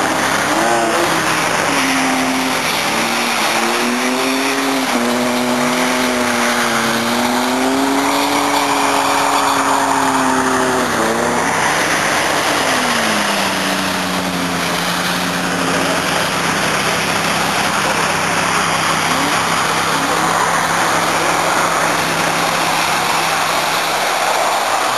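Car engines revving as the cars skid on snow. One engine's note wavers and climbs for several seconds, then another falls away, over a constant rushing noise.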